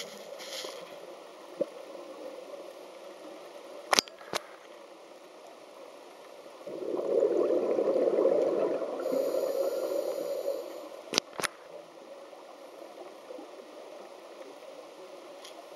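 Scuba diver's exhaled bubbles gurgling out of the regulator for about four seconds, heard through an underwater camera housing. Sharp clicks sound twice before and twice after.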